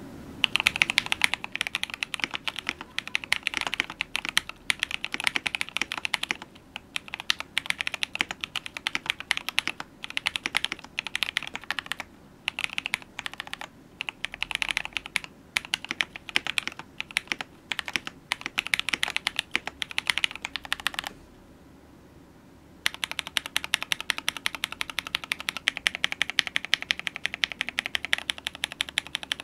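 Fast typing on a KBD67 Lite mechanical keyboard with Magic Girl tactile switches: a rapid, continuous stream of keystrokes. It stops briefly about two-thirds of the way through, then carries on.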